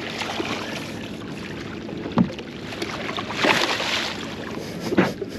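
Water splashing as a hooked mulloway thrashes at the surface and is scooped into a landing net beside the boat, loudest about three and a half seconds in. Two sharp knocks, about two seconds in and near the end.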